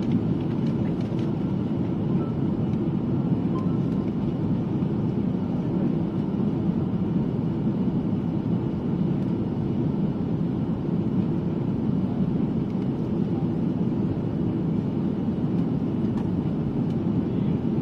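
Cabin noise inside an Airbus A330 airliner in flight: the steady, even rumble of engine and airflow noise, unchanging throughout.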